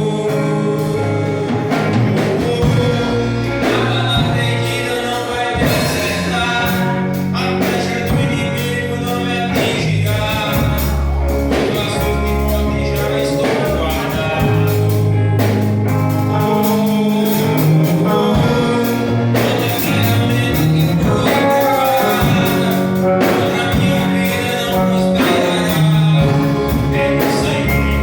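Gospel music: singing over guitar and bass accompaniment.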